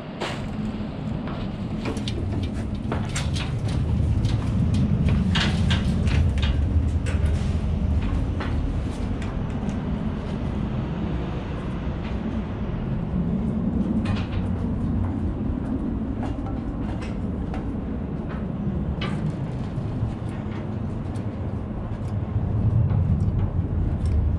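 Footsteps and knocks on rubble and metal grating: a run of sharp clicks and clatters in the first ten seconds and a few more later, over a steady low rumble.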